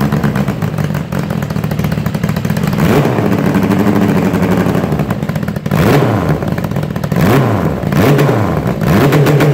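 Turbocharged Suzuki 750 motorcycle engine running at its first start-up, before any tuning: it idles for the first half, then is blipped several times in quick succession, the revs rising and falling with each blip in the last few seconds.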